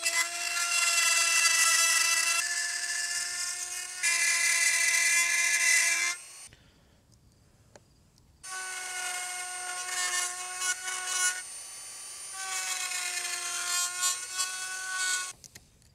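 Handheld rotary tool running at high speed with a steady whine while cutting a rectangular opening in a clear acrylic plate. It stops for about two seconds partway through, then runs again more quietly and cuts off near the end.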